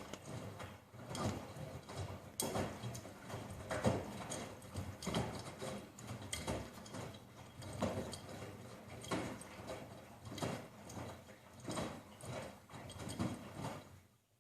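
Washing machine running, with a repeated knock or clunk about every second and a bit and smaller clicks between. The sound cuts off abruptly near the end.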